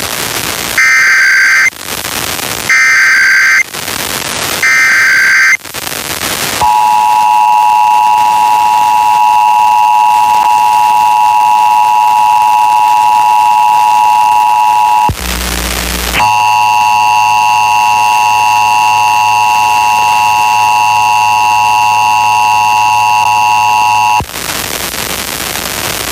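Emergency Alert System test tones: three roughly one-second bursts of the warbling SAME digital header, separated by bursts of hiss, then the steady two-tone EAS attention signal for about eight seconds. After a second of hiss the attention signal sounds again for about eight seconds with a low hum under it, and it ends in hiss.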